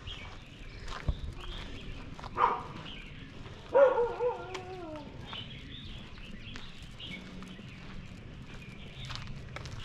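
Dogs barking from behind fences: a short bark about two and a half seconds in, then a longer bark that falls in pitch about a second later.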